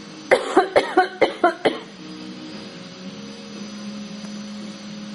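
A baby giving a string of about seven short fake coughs in quick succession, done on purpose as a trick, within the first two seconds.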